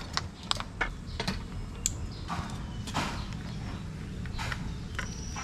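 Scattered small metallic clicks and taps, about a dozen, from a Naturehike portable gas stove being handled and assembled: its folding pot supports, burner head, fuel hose and canister adapter knocking and clicking in the hands.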